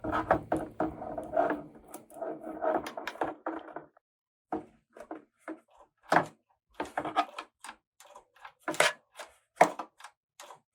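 Plastic toy pieces and packaging being handled: a dense run of scraping and rattling for about four seconds, then separate clicks and taps.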